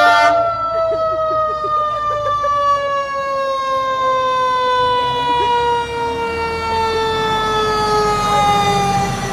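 A siren sounding one long unbroken tone that slowly falls in pitch, like a siren winding down.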